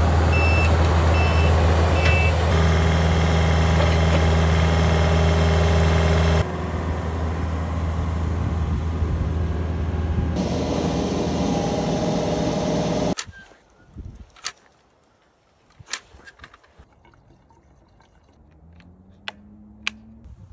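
Takeuchi TB250-2 mini excavator's diesel engine running with its hydraulics working, loud and steady, with abrupt shifts where shots change. About thirteen seconds in it stops, leaving near quiet with a few sharp clicks and knocks.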